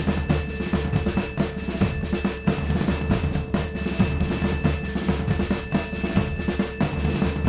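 Background music with fast, dense drumming and a few held tones above it.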